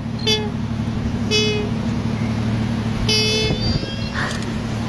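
Koala vocalising: a steady low droning call, with three short higher-pitched cries over it, the first near the start, then one at about a second and a half and one just after three seconds.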